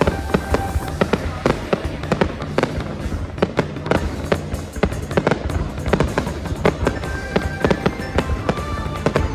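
Fireworks going off in a rapid, dense barrage of bangs, several a second, with music playing underneath.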